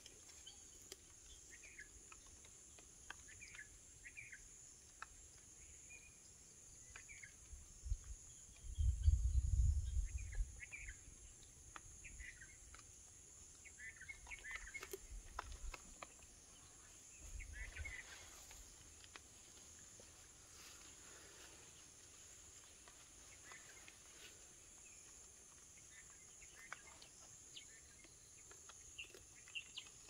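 Faint open-air ambience: scattered short bird chirps over a steady high-pitched insect drone. A brief low rumble comes about nine seconds in.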